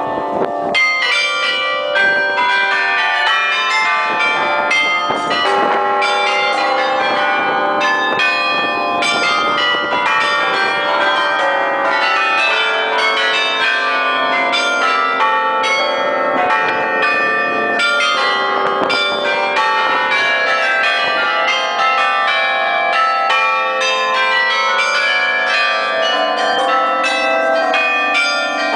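Bronze carillon bells of the Bruges Belfry played by their automatic mechanism. Many bells are struck in quick succession, ringing out a tune of many overlapping notes, loud and close among the bells.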